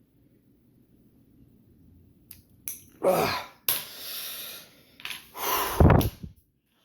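A man breathing out hard several times with effort while straining at a tight knife pivot screw, with a few small clicks. The sound cuts off suddenly near the end.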